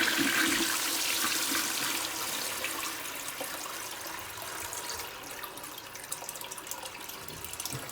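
Toilet flushing with a wad of toilet paper in the bowl: a rush of water, loudest at first and gradually dying down. The flush clears the paper.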